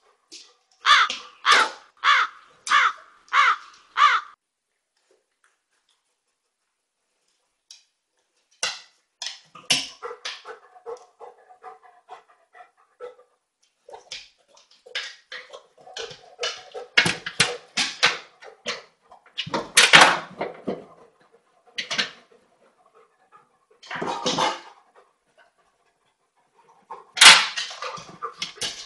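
A dog barking: six sharp barks in quick succession, then after a short pause a long run of irregular barks, some longer and louder.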